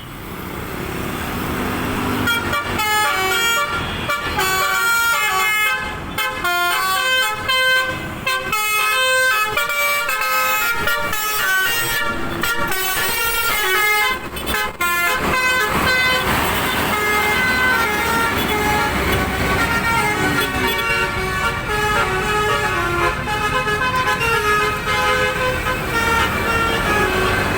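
A bus's 'telolet basuri' multi-tone air horn playing a tune, its notes stepping from pitch to pitch several times a second, with vehicle rumble underneath.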